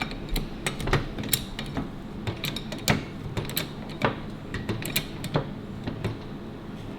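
A jack being worked to lift a motorcycle's rear wheel off the floor: a string of irregular sharp clicks and creaks that stops about a second before the end.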